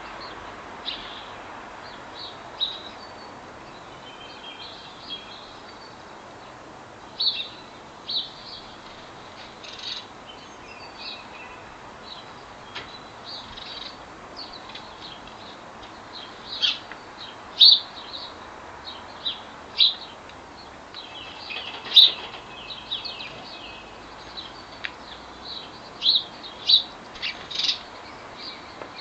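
Small garden birds chirping: many short, sharp chirps at irregular intervals, growing louder and more frequent in the second half.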